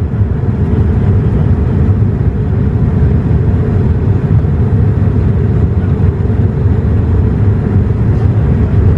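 Steady in-flight cabin noise of a Boeing 787-8 Dreamliner, heard from inside the cabin at a window seat: an even, deep drone of engines and airflow.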